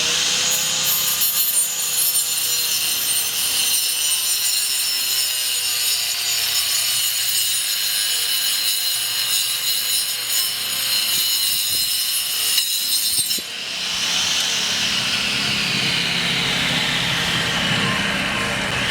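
Homemade cordless cutter driven by a 775 DC motor, its spinning blade cutting wood with a steady high whine and rasp. About 13 seconds in the sound breaks off briefly, then the whine sinks in pitch and climbs back up.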